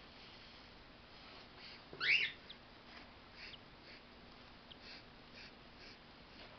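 Cockatiel chick squealing: one loud, short rising squeal about two seconds in, then faint high chirps repeating through the rest.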